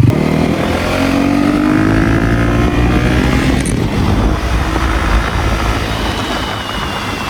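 KTM Duke 250 single-cylinder engine pulling away on its stock exhaust, its note rising in pitch over the first few seconds. About four seconds in, the note breaks, as at a gear change, and then rises again under a rushing noise, fading a little toward the end.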